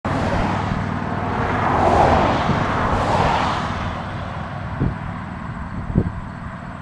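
A car passing on the road, its tyre and engine noise swelling to a peak about two seconds in and fading away by about four seconds. Two short low thumps follow near the end.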